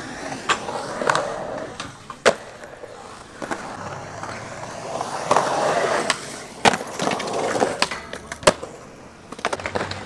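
Skateboard wheels rolling on concrete, swelling about five to six seconds in, with several sharp clacks of the board striking the ground.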